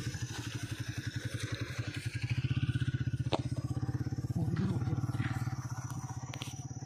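An engine running steadily with a fast, even throb, and a single sharp click about three seconds in.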